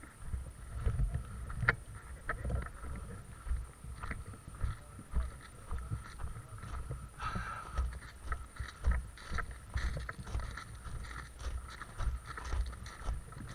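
Footsteps of a player on the move, heard as uneven low thumps about once or twice a second, with scattered clicks and a short rustle about seven seconds in.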